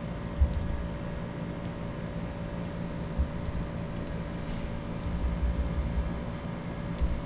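Scattered computer mouse and keyboard clicks as code is selected, copied and pasted, over a steady background hum with a faint held tone. A few dull low thumps come in between.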